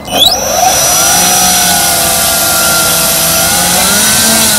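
E-flite Power 90 brushless electric motor on a Hangar 9 Twist 60 model airplane spinning a 15x7 propeller: it spools up with a quick rising whine at the start, then runs as a steady whine with a strong hiss of prop wash, its pitch wavering slightly with the throttle.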